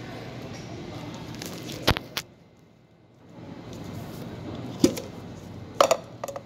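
A few sharp clicks and knocks from things being handled on a coffee bar (glass jars, a plastic scoop, the phone itself), over a steady room hiss: one pair about two seconds in and a cluster of them near the end.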